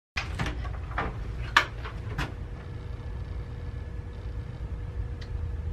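Office door being handled: a run of clicks and knocks from the knob, latch and swinging door over the first couple of seconds, the loudest about a second and a half in. After that comes a steady low room hum.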